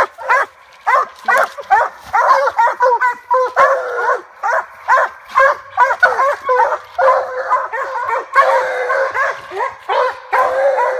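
Treeing Walker coonhounds barking treed at the base of a tree, the hound's signal that it has a raccoon up the tree. The barks come in a fast run, several a second, and from about two seconds in they overlap into a near-continuous chorus.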